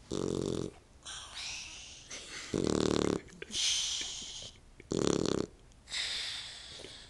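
Puppy snoring in its sleep: three low snores about two and a half seconds apart, each followed by a softer, hissing breath.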